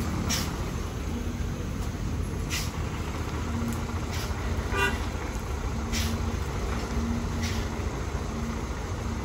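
Diesel engine of a Mitsubishi Fuso flatbed tow truck running steadily at low revs, with a short horn toot about halfway through.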